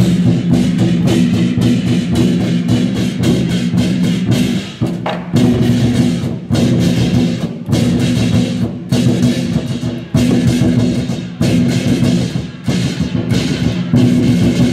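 Ensemble of large Korean barrel drums (buk) beaten in a fast, driving rhythm, with a sustained melody line over the drumming. The strokes break off briefly several times between phrases.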